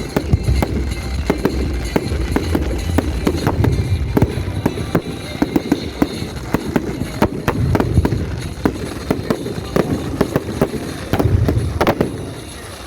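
Fireworks going off: a dense, irregular run of sharp bangs and crackling pops over a low rumble, dying down just before the end.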